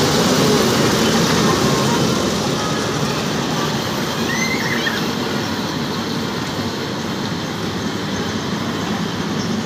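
Amusement-park kiddie train rolling along its low steel track, a steady running noise that grows a little quieter after about two seconds as the cars move off.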